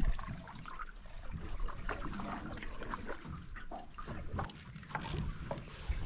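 Paddling an aluminum canoe: paddle strokes splashing and dripping, with scattered light knocks against the hull over a low rumble.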